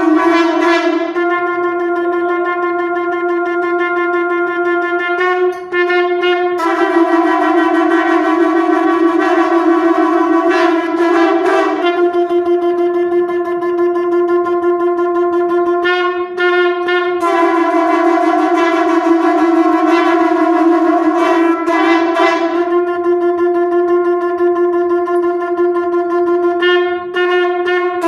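Many conch shells (shankha) blown together in one long, steady, loud note. It dips briefly as the players take breath, about five seconds in, again about sixteen seconds in and near the end.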